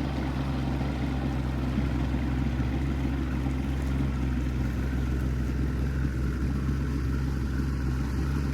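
Motorboat engine running steadily at low speed through a no-wake zone, a constant low hum with no change in pitch.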